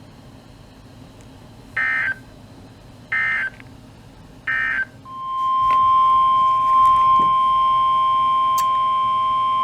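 Three short bursts of warbling SAME digital data tones, the end-of-message code of a NOAA Weather Radio alert. About five seconds in, a steady single alarm tone near 1 kHz swells in and holds: the 1050 Hz NOAA Weather Radio warning alarm tone that announces a new alert.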